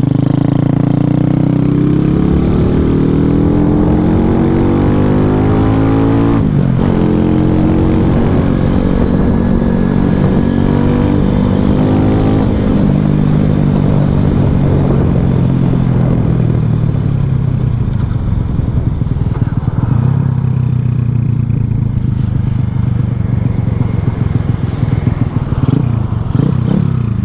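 Single-cylinder four-stroke engine of a 2021 Boom Vader mini bike, fitted with a 141cc big bore kit and Nibbi carburettor, running under way. It revs up, drops sharply in pitch at a gear change about six seconds in, and climbs again. It then eases off slowly over several seconds and runs steadier near the end.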